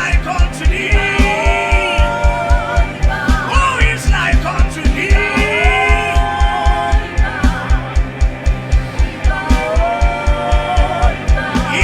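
Live gospel worship music: a singer's gliding, held melodic lines over a band with a fast, steady bass-drum pulse.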